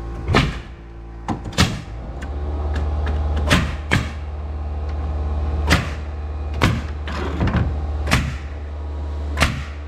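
Pneumatic nail gun driving ring shank nails into roof framing, with about nine sharp shots at irregular spacing. An air compressor starts running steadily about two seconds in.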